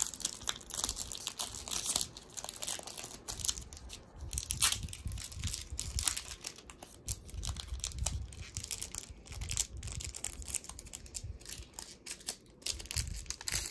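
A Pokémon booster pack's foil wrapper being torn open and crinkled in the hands: a long run of irregular crackles and rustles.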